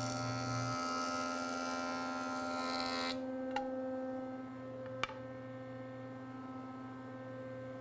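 Jointer with its cutterhead planing a board edge, a hissing cut over the machine's steady hum. The cut stops abruptly about three seconds in, and the jointer runs free with the hum alone, broken by two light knocks.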